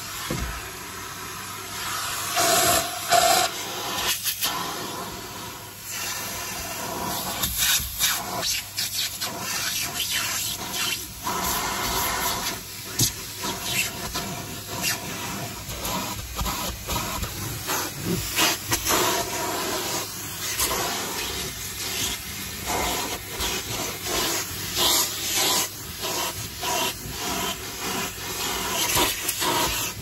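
Numatic Henry cylinder vacuum cleaner running, its crevice nozzle worked over fabric seat upholstery: a steady rush of sucked air that swells and dips repeatedly as the nozzle presses onto and lifts off the cloth.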